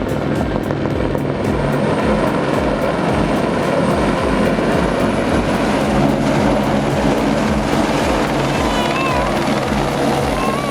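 Helicopter rotor blades chopping in a steady, even rhythm, from a helicopter used for timber hauling.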